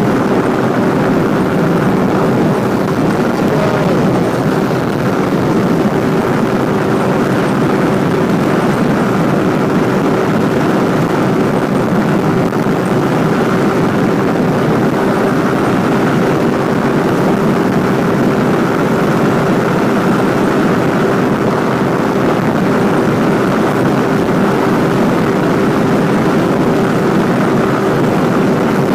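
Motorcycle engine running at a steady cruising speed, with a steady drone and the rush of wind over the rider-mounted camera's microphone.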